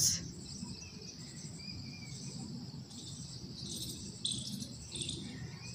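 Crickets chirping steadily in the background, with a few brief louder chirps a little after the middle.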